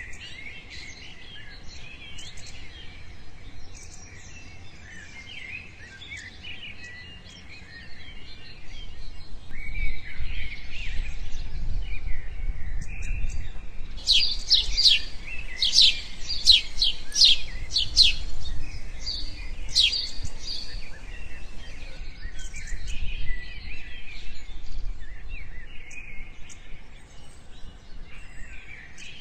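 Birds chirping and singing, with a run of loud, sharp downward-sweeping calls for several seconds around the middle. A low rumble runs underneath through the middle part.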